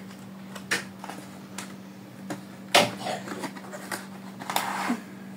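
Cardboard product box and paper being handled and opened: rustling card and paper with scattered light clicks and one sharper snap nearly three seconds in. A steady low hum runs underneath.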